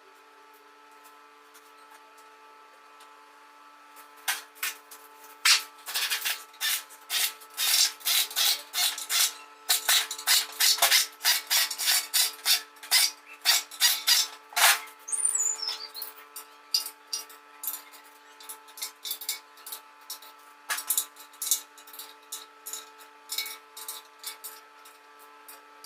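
Hand tools working metal engine parts: a long run of quick, irregular scraping and clicking strokes, with a brief falling squeak in the middle.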